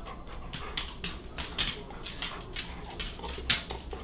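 A dog panting in quick, short breaths, about three to four a second.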